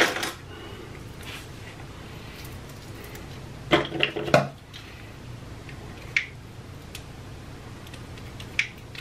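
Plastic candy-cane wrapper crinkling as fingers pick at it, trying to tear it open. A cluster of crinkles comes about four seconds in, then short single crackles near six and eight and a half seconds.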